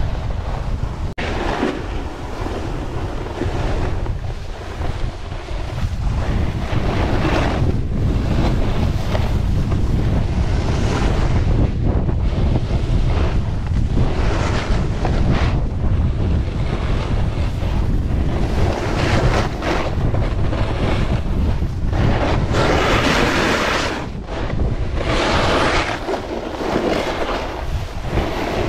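Wind buffeting the GoPro Max's microphone during a snowboard run, a steady heavy rumble, with the hiss of the snowboard's edge scraping over groomed snow rising and falling in repeated surges through the turns, loudest in the second half.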